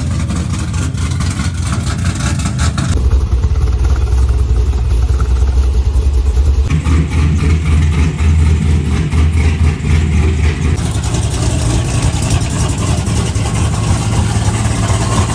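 Chevrolet Tahoe's 5.3-litre V8 engine running with a steady low rumble, in short clips that change abruptly three times.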